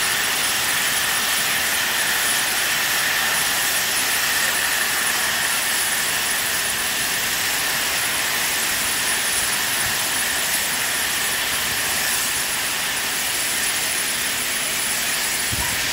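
LMS Royal Scot class steam locomotive 46115 Scots Guardsman standing with its safety valves blowing off: a loud, steady roar of hissing steam with no exhaust beats.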